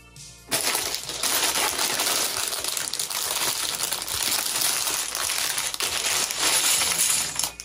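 Plastic bags of LEGO pieces crinkling as they are handled and torn open, with small plastic bricks clicking and clattering against each other. It starts about half a second in.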